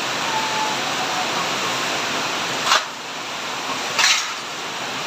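Heavy rain and rushing floodwater making a steady noise, with two short clicks a little over a second apart near the middle.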